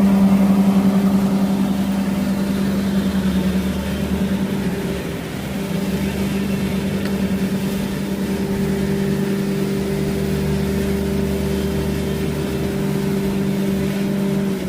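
An engine running steadily with a constant hum, dipping slightly about five seconds in.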